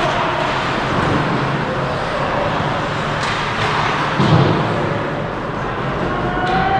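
Ice hockey game sound in a rink: a steady rumbling hiss of play on the ice, with a few sharp clacks and a dull thump about four seconds in.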